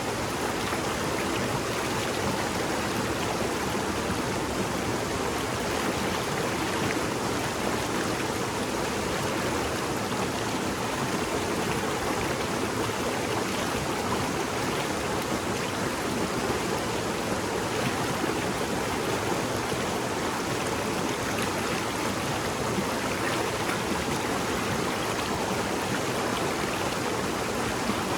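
A shallow mountain stream babbling steadily, an even rush of running water.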